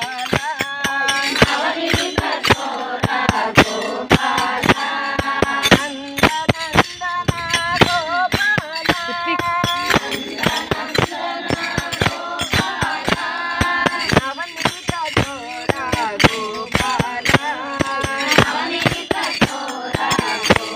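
Group of women singing a devotional bhajan in unison, keeping a steady beat with hand claps and the clink of small metal hand cymbals.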